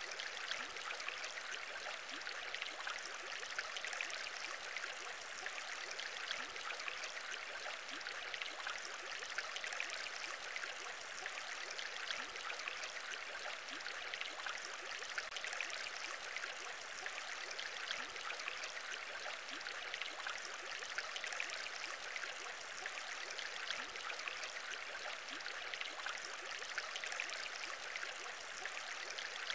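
Aquarium bubbles: a steady, unbroken bubbling of water with many tiny pops.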